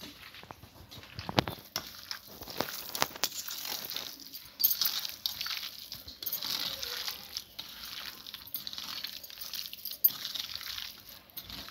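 A hand squishing and turning raw chicken pieces through a thick, coarse masala paste in a stainless steel bowl: irregular wet rustles, with a few sharp clicks against the bowl.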